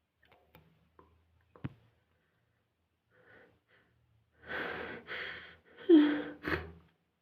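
A person sneezing: two loud, drawn-in breaths build up, then a sudden voiced sneeze about six seconds in, with a short second burst right after it. A few faint clicks come before.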